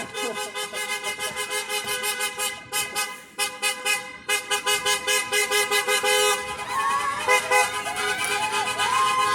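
Car horns honking as a procession of cars drives past, several horns at once in rapid repeated beeps, then longer held honks in the last few seconds.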